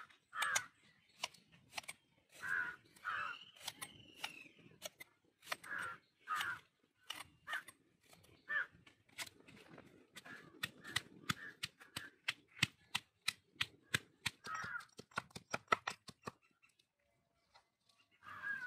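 Sharp knocks of a knife and then a stone pestle in a stone mortar as pieces of ginger are cut and crushed. The knocks come faster in the second half and stop shortly before the end. Crows caw repeatedly, mostly in pairs of calls.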